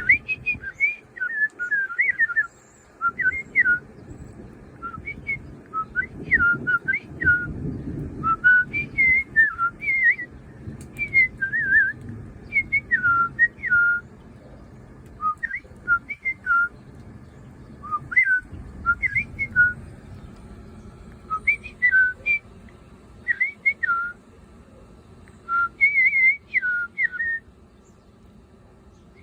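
A person whistling imitation birdsong: short, quick chirping phrases that slide up and down in pitch, repeated in bursts with brief pauses between them.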